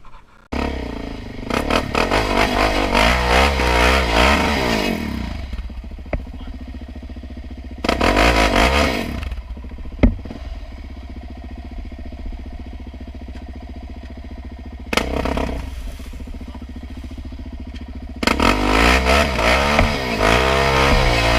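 Sport quad ATV engine through a Big Gun aftermarket exhaust, revving hard in surges with pitch rising and falling, easing to a steadier lower run between them. A single sharp knock about ten seconds in.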